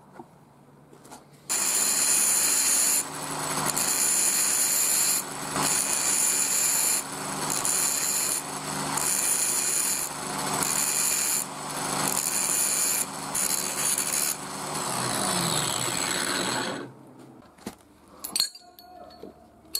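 Angle grinder with an abrasive disc starting up about a second and a half in and grinding a steel bolt and nut pressed against the disc, the grinding noise swelling and easing every second or two. Near the end the motor is switched off and spins down with a falling whine, followed by a few sharp metal clinks.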